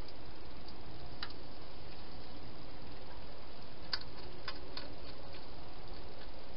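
Wild hedgehog feeding at a bowl: a few scattered sharp clicks, a cluster of three about four seconds in, over a steady background hiss.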